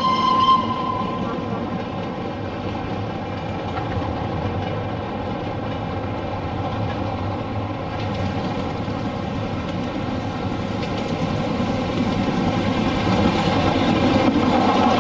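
Steam locomotive 30777, a Southern N15 'King Arthur' class 4-6-0, working a passenger train past the lineside, its running and the train's rail noise growing louder near the end as it draws close. A short high whistle note sounds at the very start.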